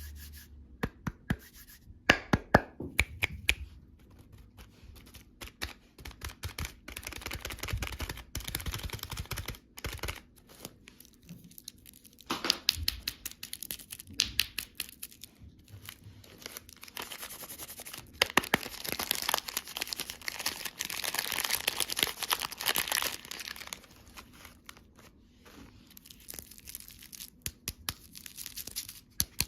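Candy wrappers and packaging being torn open and crinkled close to the microphone, with many sharp clicks and taps between longer spells of crinkling.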